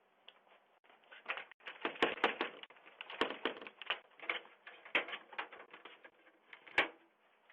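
A rapid, irregular series of sharp clicks and taps, several a second, over a faint hiss. The clicks start about a second in and are densest in the middle, with one of the loudest near the end.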